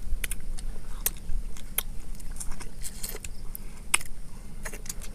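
Mouth sounds of two people eating sour lemon slices: scattered small wet clicks and smacks of biting and sucking on the lemon, over a low steady rumble.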